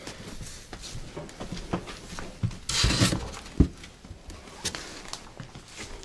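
A wooden board and cushions being handled and shifted: light knocks and shuffling, a scraping rush about halfway through, and a sharp wooden knock just after it.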